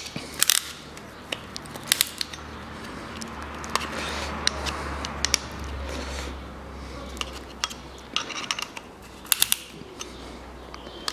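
Scattered sharp metallic clicks and clinks of a piston ring compressor and hand tools being handled and adjusted while pistons are fitted, some in quick little clusters, over a low steady hum.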